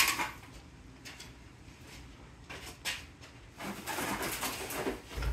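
Scattered light rustles and clinks from bags of empty cans and plastic bottles being handled, thicker in the last second and a half.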